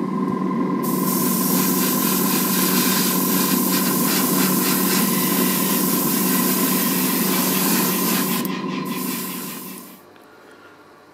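An airbrush spraying thinned nail polish, a steady hiss over the hum of a spray booth's extractor fan. The hiss starts about a second in, breaks off briefly near the end, and both stop about a second before the end.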